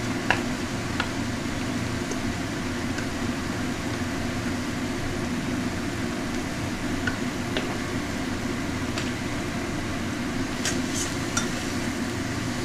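Radish greens frying in a wok, a steady sizzle and hiss, with a metal spatula clicking and scraping against the pan now and then and a quick run of scrapes near the end as the greens are stirred.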